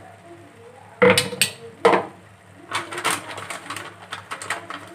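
Metal kitchen utensils clinking against pots and containers: three sharp knocks, then a quick run of lighter clicks and taps.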